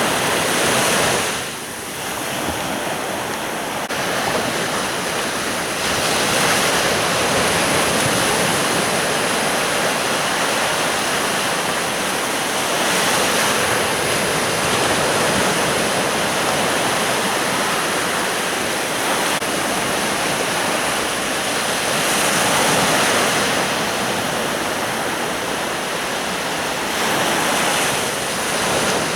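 Sea surf on a beach: waves breaking and washing in, the rushing noise swelling and easing every several seconds.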